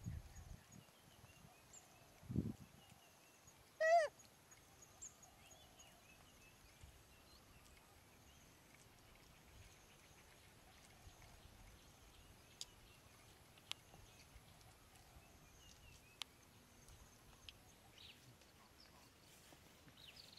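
Quiet outdoor ambience with faint scattered bird chirps. About four seconds in comes a single short, sharp animal call, the loudest sound. Two low thumps come before it, and a few sharp ticks come later.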